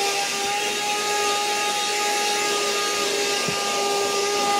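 Cordless vacuum cleaner running at a steady pitch: a high motor whine over rushing air.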